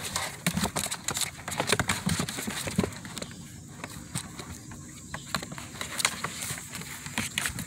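Seven-week-old American Bully puppy playing in the grass and mouthing a person's hand: irregular rustling and soft clicks.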